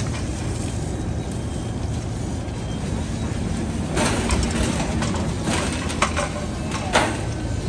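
Steady low rumble of fire apparatus engines running. About four seconds in comes a burst of scraping, then a few sharp metallic clanks as firefighters work debris with hand tools beside the burned trailer.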